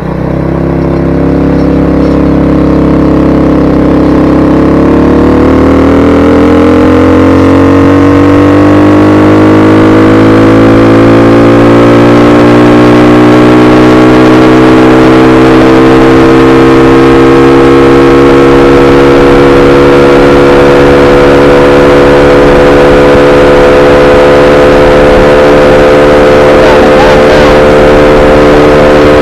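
Honda 50cc engine on a homemade motorized bike pulling away under throttle: its note climbs steadily for several seconds, then holds at a steady high pitch while cruising.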